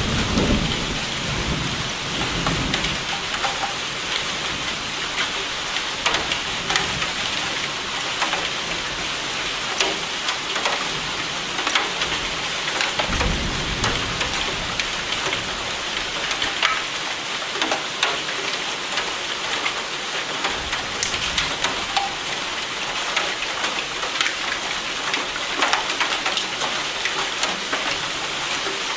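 Steady heavy rain with many sharp drop ticks. Thunder rumbles at the start, fading over the first few seconds, and a second low rumble of thunder comes near the middle.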